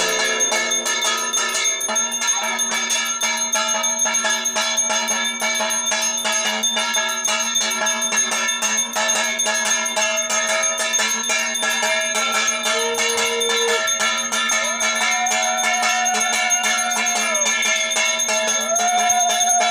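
Brass puja hand bell rung rapidly and evenly without a break, its overlapping strokes building a steady shimmering ring. Over the last several seconds a few held higher tones that sag in pitch at their ends join in.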